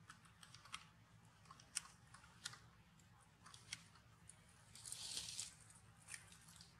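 Faint, scattered crackles and clicks of dry leaves and grit as macaques move on the stones, with a brief rustle about five seconds in as the mother grabs her baby.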